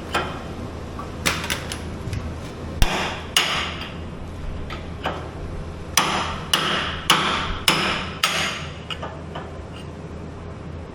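Hammer blows on the metal axle bushing and pin of a Skyjack SJIII 3219 scissor lift, knocking the parts during bushing replacement. The blows come irregularly, about a dozen of them, and fall in a quicker run about half a second apart between six and nine seconds in. Each blow has a short metallic ring, over a steady low hum.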